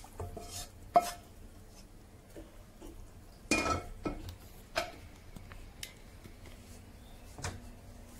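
Wooden spatula knocking and scraping against metal cookware while a wet prawn-and-rice mix is stirred in a cooking pot: a sharp knock about a second in, then a few scattered clatters and scrapes.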